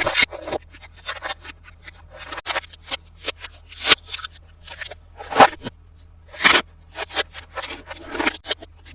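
Plastic toy pieces and packaging handled close to the microphone: irregular clicks, taps and crinkly rustles, with a few sharper snaps about four, five and a half and six and a half seconds in.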